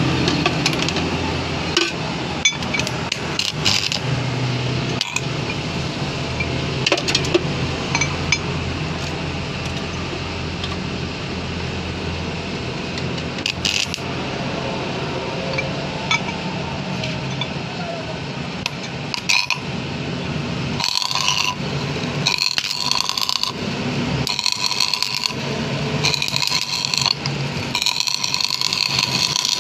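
Arc (stick) welding on a steel Suzuki Jeep steering box part: the electrode arc crackles and sizzles in several short runs of about a second each in the second half. Before that there is a steady low hum with occasional metal clinks.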